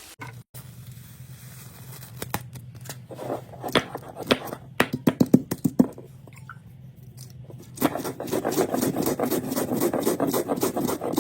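Cooking in a pan: a spatula scraping and knocking against the pan in scattered strokes, then a denser run of quick scraping strokes about eight seconds in.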